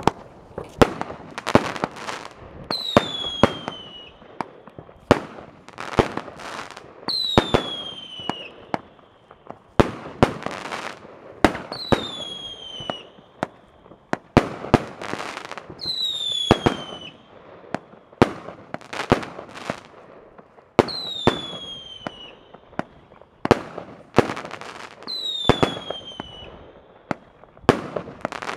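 A Nova Piranha 40-shot, 22 mm firework battery firing: a rapid, uneven run of sharp launch bangs and star bursts going off overhead. A high falling whistle recurs about every four and a half seconds.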